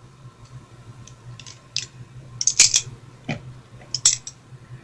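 Scattered sharp clicks and taps, the loudest about two and a half and four seconds in, over a low steady hum.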